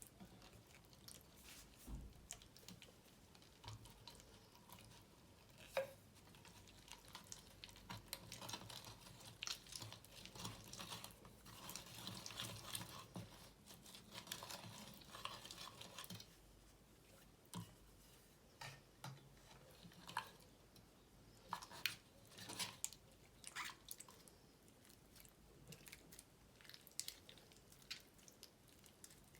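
Glue slime being mixed and worked: soft, wet squishing and sticky clicks, scattered at first and busier through the middle.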